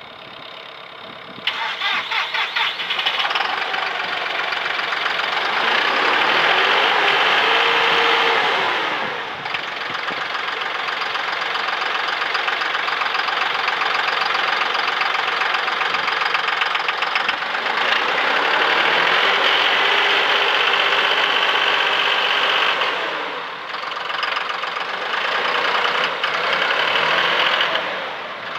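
John Deere 5055E tractor's three-cylinder diesel engine cranking and catching about a second and a half in, then running and revving up and back down three times.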